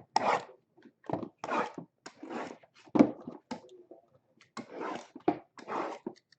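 Foil trading-card packs being handled: irregular crinkling and rustling of the wrappers, with a sharp snap about three seconds in.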